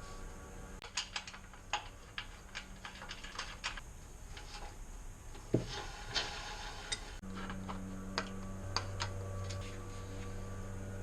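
Irregular light metallic clicks and taps of hand tools and small parts being handled while the dryer's drum-wheel hardware is taken apart. A steady low hum comes in about seven seconds in.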